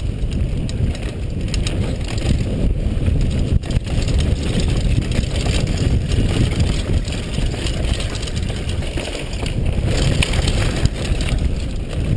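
Mountain bike riding fast down a dirt trail: steady wind rumble on a helmet-mounted camera's microphone over the tyres rolling on dirt and the bike rattling, with a few sharp knocks.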